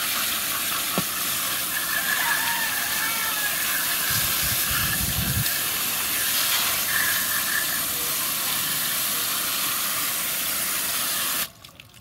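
Water jetting from a garden hose spray nozzle onto plastic toy cars in a plastic basket: a steady spray hiss that cuts off suddenly near the end.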